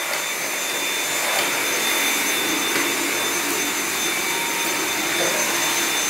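Dyson cordless stick vacuum running steadily as its floor head is pushed over a hard floor: a constant rush of air with a thin, steady high-pitched whine.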